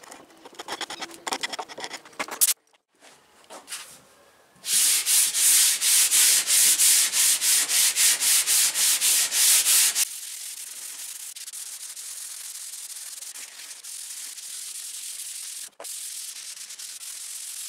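A chisel scraping the old polyurethane finish off the edge of a pine tabletop in quick short strokes, then, after a break, the tabletop being sanded by hand in fast back-and-forth strokes, about four a second. Near the middle the strokes give way to a steadier, quieter rubbing hiss.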